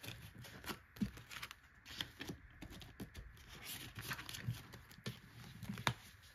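Faint rustling of paper bills and a plastic binder pocket being handled, with scattered soft taps and clicks, as cash is tucked into a cash-budget binder. A slightly firmer tap just before the end as the binder cover is closed.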